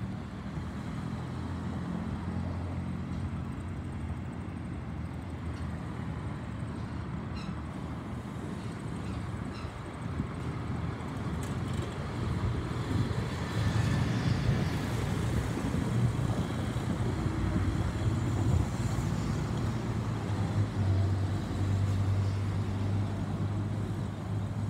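Jet airliner flying over, an Airbus A320neo with CFM LEAP-1A turbofans: a broad engine rumble that swells about halfway through and stays loud toward the end, over a steady low hum.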